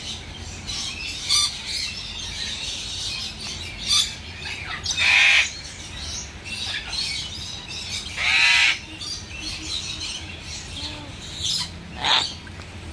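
Parrots squawking and chirping, with two long, loud harsh squawks about five and eight seconds in and shorter calls scattered between.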